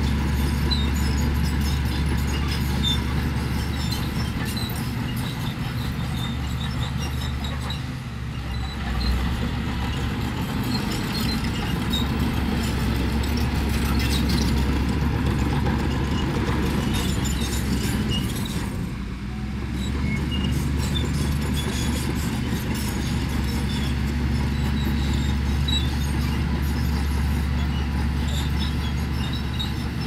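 Bulldozer's diesel engine running steadily under load, with scattered light metallic clinks. The engine note eases briefly twice, about eight and nineteen seconds in.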